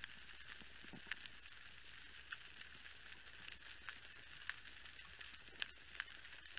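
Faint coral reef soundscape picked up underwater: a steady crackling hiss with a few sharp clicks scattered through it, typical of snapping shrimp on the reef.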